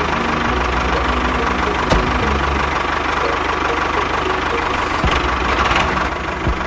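Engine running steadily with a fast, even low chugging.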